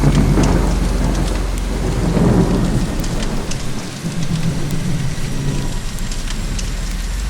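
Steady rain with fine drop patter, under low rolling thunder that swells near the start and again about two seconds in, then dies away over the second half.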